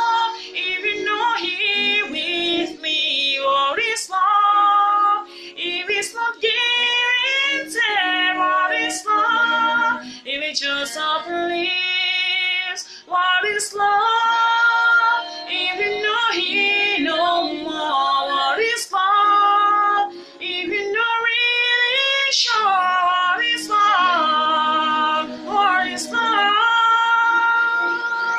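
A young woman singing solo, holding long notes and moving through vocal runs whose pitch bends up and down, with short breaks between phrases.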